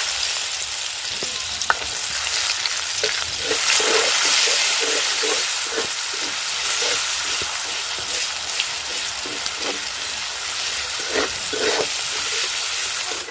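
Chopped onions sizzling loudly in hot oil in a kadai, stirred with a spatula that scrapes the pan in short repeated strokes. The sizzle cuts off suddenly at the end.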